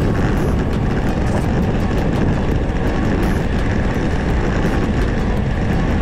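Wind rushing over the camera's microphone on a bicycle coasting fast downhill: a steady, loud, low rumbling noise.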